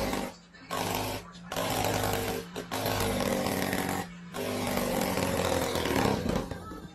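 Electric fan buzzing and rattling in repeated bursts about a second long, each set off as a cat paws at its front grille.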